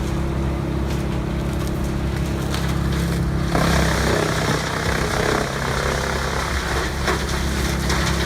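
Giant tractor-driven wood chipper running with a steady engine-like hum. A louder, rougher noise sets in about three and a half seconds in.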